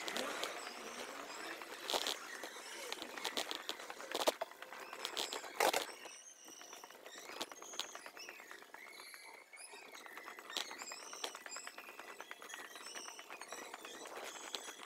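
Bicycle-ride street sound played back at six times speed: a fast patter of clicks and rattles, a few louder ones, with short high chirps scattered through it.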